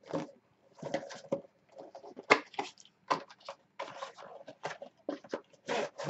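Cardboard box being opened and handled by hand: a busy run of irregular scrapes, rubs and taps.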